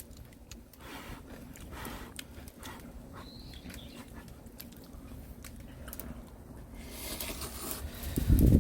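Someone eating ramen: small scattered clicks and smacks of chewing, with a louder noisy swell near the end.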